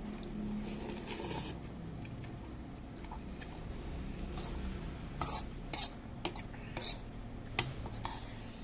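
Metal spoon or fork clinking and scraping against a bowl of seblak while eating, with several sharp clinks bunched in the second half.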